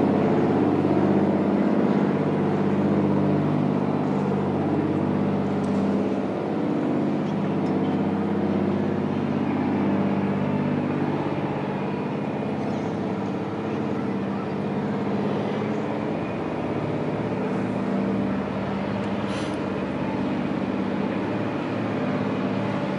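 Small fishing boat's diesel engine running in the lock, a loud, steady low drone.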